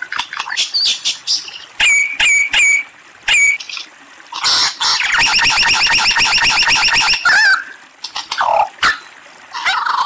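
Lyrebird singing a varied string of calls: short sharp whistled notes and clicks, then a rapid, even rattling trill of about three seconds in the middle, and a few short notes near the end.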